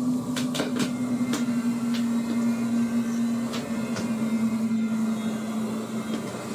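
A steady low hum, with a few light clicks mostly in the first two seconds and one or two near the middle. The hum fades out near the end.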